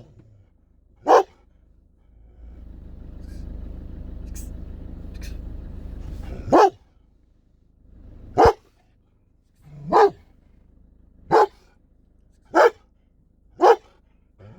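Dog barking in single, loud barks, about eight of them with irregular pauses, two in quick succession at the start and then a run of five or so spaced about a second apart. A steady low rumble runs under the gap in the first half.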